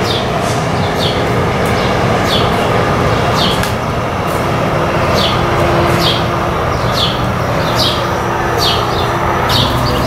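Tri-Rail double-deck commuter train pulling away from the station with a steady rumble, while a bird repeats short falling chirps about once a second.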